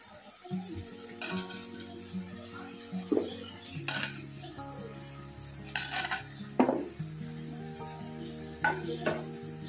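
Chopped tomatoes tipped from a steel bowl into a pressure cooker of frying mutton curry: a soft sizzle with a series of sharp metal clinks and knocks as the bowl meets the cooker's rim, loudest about six and a half seconds in. Background music with held notes plays underneath.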